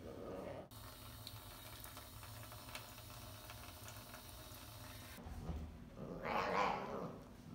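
Tap water running steadily into a stainless steel sink and onto a baby bottle in a plastic tub, a hiss that starts and stops abruptly over about four and a half seconds. Near the end, a louder sound about a second long comes from the tiger cub as it is offered the bottle.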